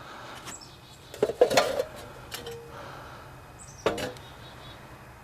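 A few light knocks and clinks, a cluster of them a little over a second in and another near four seconds, over a low steady hum: engine parts and tools being handled during a teardown.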